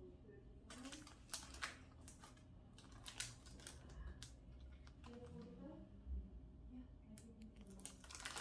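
Faint, irregular light clicks and taps in a few short clusters, the busiest about a second or two in, with single clicks later.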